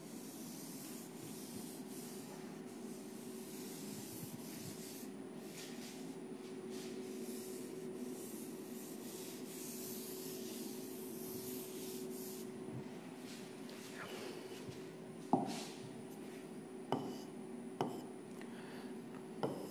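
A palm rubbing across the glass of an interactive touchscreen board as it wipes the screen clear, faint and steady over a low hum. Toward the end come a few short, sharp taps on the screen as writing begins.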